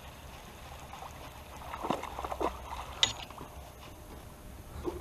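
Faint water splashing as a hooked bass thrashes at the surface beside the boat, in a short cluster about two seconds in, followed by one sharp click a second later.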